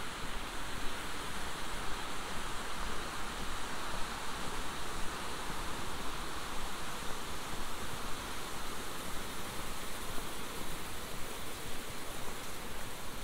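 Steady, even rushing outdoor noise with no pitch and no distinct events, strongest in the middle range.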